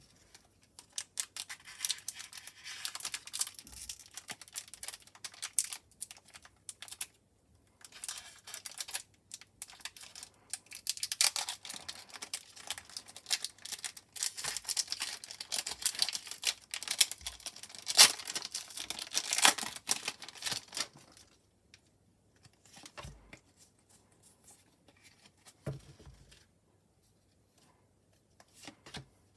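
Foil wrapper of a Pokémon Trading Card Game booster pack crinkling and tearing as it is opened by hand, with a short break about 7 seconds in. From about 21 seconds, only faint, scattered handling sounds from the cards.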